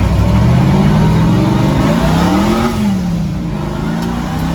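Twin-turbo destroked 6-litre LS V8 pickup engine accelerating hard. The engine note climbs to a peak about two and a half seconds in, drops as the revs fall, then starts to rise again near the end.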